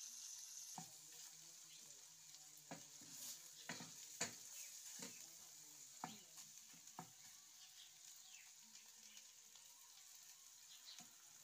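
Egg and onion mixture sizzling faintly in a steel kadai while a wooden spatula stirs and scrapes it, with sharp knocks of the spatula against the pan now and then, most of them in the first seven seconds.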